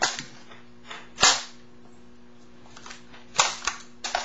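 Sharp clacks from handling a G&G M4 airsoft rifle: one at the start, the loudest about a second in, then a quick cluster of three near the end.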